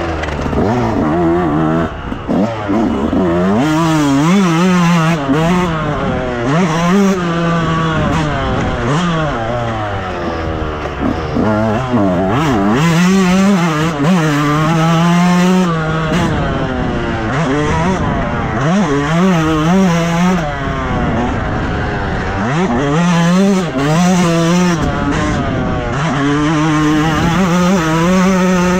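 Motocross bike engine revving hard, its pitch climbing under throttle and dropping off again and again through the gears.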